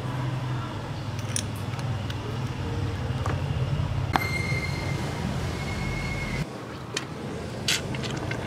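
A few light metallic clicks and taps from a small wrench on the bleeder screw of a motorcycle's rear brake caliper as it is opened for bleeding, over a steady low hum.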